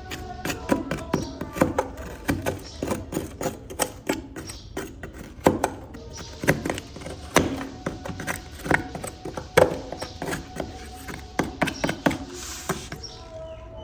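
Irregular light taps and clicks from a small toy car being handled during cleaning, several a second, over quiet background music.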